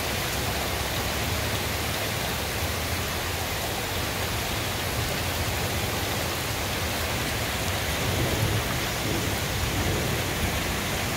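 Heavy rain pouring steadily in a thunderstorm, with a low rumble underneath that swells slightly about eight seconds in.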